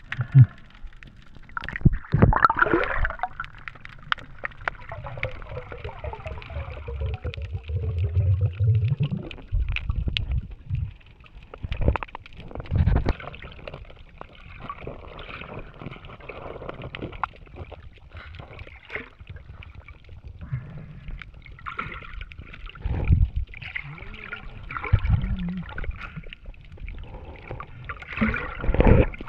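Underwater sound picked up by a submerged camera: low gurgling and rumbling water movement with many sharp irregular clicks and knocks as a freediver moves and handles stones and shells on the seabed.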